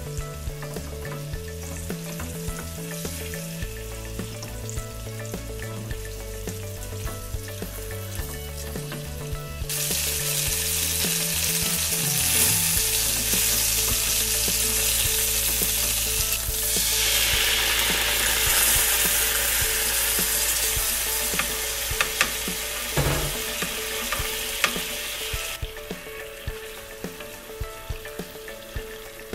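Flour-dusted chicken pieces frying in oil in a square frying pan, with a steady sizzle. The sizzle jumps much louder about a third of the way in and drops back near the end, with a few sharp clicks of chopsticks against the pan in the later part.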